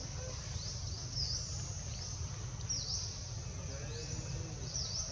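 Outdoor ambience: a high-pitched call that dips and rises again, repeating about once a second over a steady low rumble.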